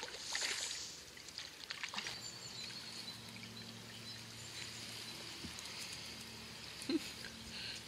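Water splashing as a hooked brown trout is played to the bank and lifted out by hand, over the steady trickle of the river. A faint steady low hum sits underneath from about two seconds in.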